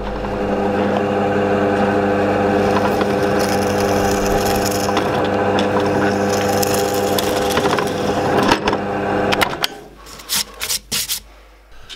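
Drill press running steadily with a 7 mm twist bit boring through a plywood board. It stops about nine and a half seconds in, followed by a few sharp knocks.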